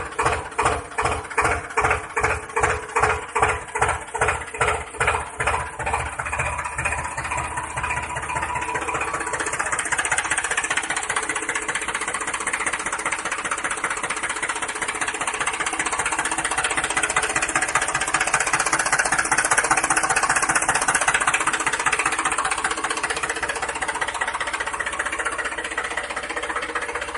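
Tractor engine running with a slow, regular chug of about three beats a second, which quickens into a faster, steadier run from about six seconds in.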